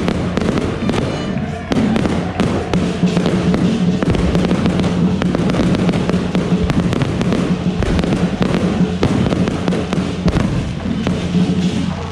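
Aerial firework shells bursting in quick succession, a dense run of bangs and crackles, with music playing underneath.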